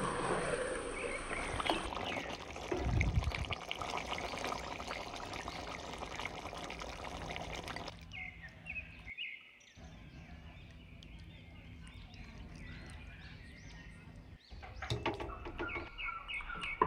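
Wet squelching and crackling as thick chicken curry is stirred with a wooden spatula in a clay pot. About halfway in it drops quieter, with faint bird chirps in the background, and near the end raw chicken pieces are squished and moved around in a steel bowl.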